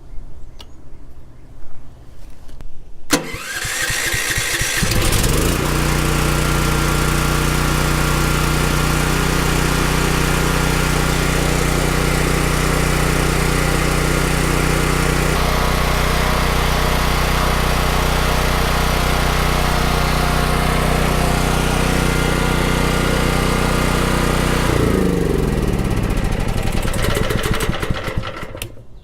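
Champion 7500-watt dual-fuel portable generator's engine starting about three seconds in, speeding up, then running steadily. Near the end it is shut off and its note falls as it spins down.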